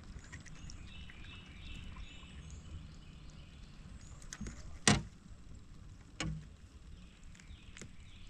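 Handling noises in a fishing kayak as a just-caught crappie is held and unhooked: a sharp knock about five seconds in, with a few lighter clicks and soft thumps.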